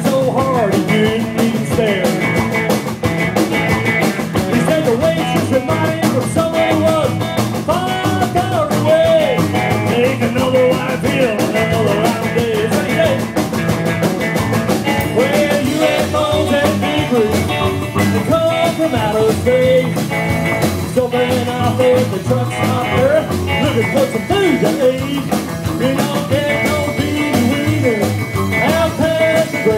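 Live rockabilly band playing: electric guitar, upright double bass and drum kit, a steady full-band sound with no pause.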